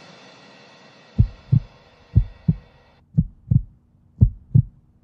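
Heartbeat sound effect: paired low lub-dub thumps about once a second, starting about a second in. Under the first beats the tail of electronic music fades and cuts off about three seconds in.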